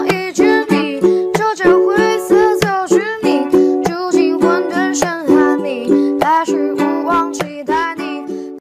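Music: a strummed ukulele with a voice singing over it, at a brisk, even strum, stopping abruptly.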